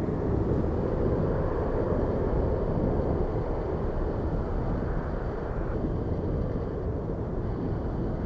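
Jet airliner engines rumbling, slowly fading, with a faint high whine above the rumble. Wind buffets the microphone.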